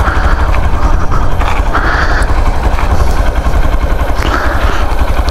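Hero Xpulse 200 motorcycle's single-cylinder engine running at low speed with a steady low rumble, with no change in pitch, as the bike rolls slowly.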